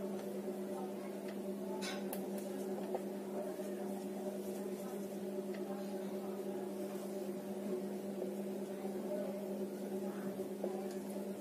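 Steady electrical hum in a small room, a constant low tone with higher overtones, with faint soft scratches of a marker writing on a whiteboard.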